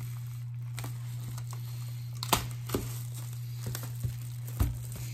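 Loose plastic shrink wrap crinkling and crackling as it is handled along with a cardboard record jacket, with a few sharper clicks and taps about two and four and a half seconds in.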